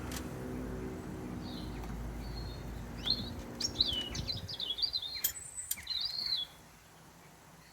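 A songbird singing a quick run of chirping, warbling notes for a few seconds, over a steady low drone that fades out about four and a half seconds in.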